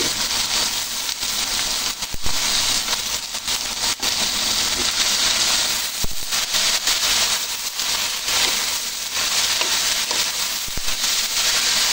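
Kuey teow (flat rice noodles) and bean sprouts sizzling in a hot wok as they are stir-fried with a wooden spatula, with a few knocks of the spatula against the pan.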